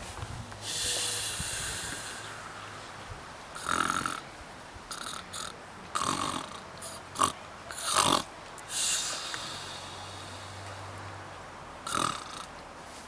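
Someone snoring in deep sleep: a series of breaths every few seconds. Two of them are long, with a low buzz, and the others are short and sharp, like snorts.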